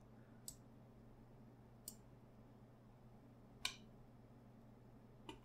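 Near silence with a faint low hum, broken by four isolated clicks of a computer mouse and keyboard being worked, the loudest about two-thirds of the way through.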